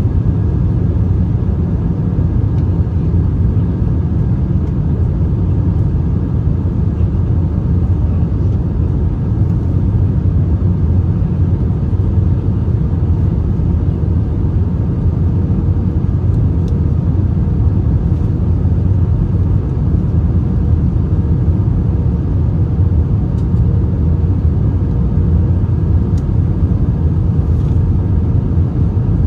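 Steady cabin noise of an Airbus A321-231 on approach, heard from a passenger seat: its IAE V2500 engines and the airflow make a low, even rumble with a faint steady hum above it.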